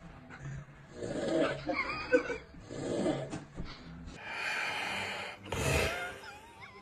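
Snoring: a run of short, rasping snores about a second apart, then two longer breaths, the second one louder.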